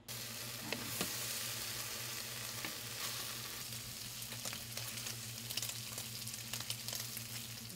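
Chunks of adobo meat sizzling in oil in a nonstick frying pan: a steady even hiss with scattered small crackles and pops.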